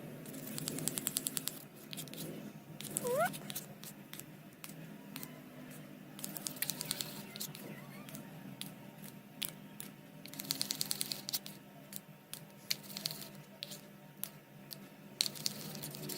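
Slime being stirred and squeezed after water is mixed in, making bursts of rapid, sticky clicks and pops, three longer runs with scattered clicks between. A short rising squeak comes about three seconds in.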